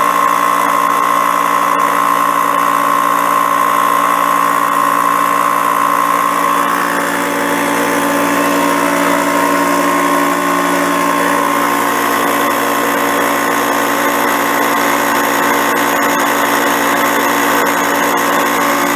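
Top Craft TCK 182 small electric air compressor running continuously, a loud steady motor-and-pump drone; a high whine in it drops away about seven seconds in. The compressor apparently has no pressure tank, so it has to run nonstop to deliver air.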